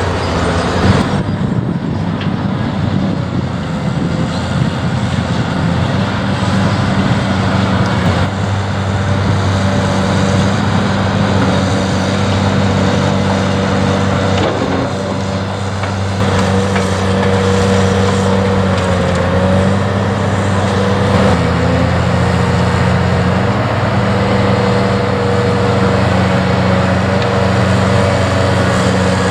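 Diesel engine of a heavy Caterpillar construction machine running steadily under work, its pitch shifting slightly a few times, with a brief sharp knock about a second in.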